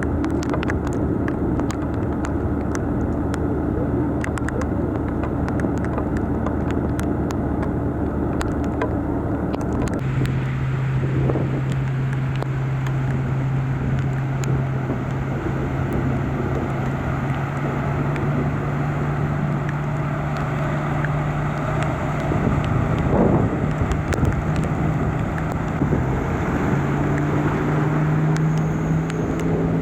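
A vehicle engine running steadily under a constant noisy wash, with scattered sharp ticks in the first part. About a third of the way in the sound changes abruptly to a different, slightly higher engine hum, which rises a little later on.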